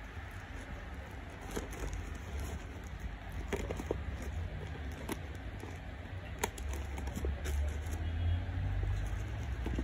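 Cling film being pulled off a foil cake tray, crinkling with scattered sharp crackles over a steady low rumble.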